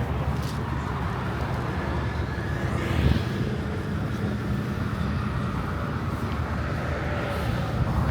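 Steady road traffic passing, with a brief louder thud about three seconds in.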